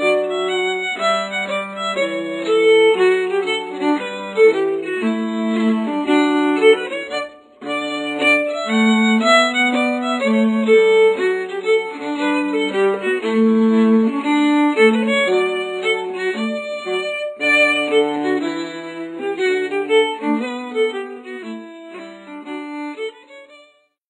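Instrumental music, a lively tune of stepping notes over a lower line, with a brief break about seven seconds in; it fades out just before the end.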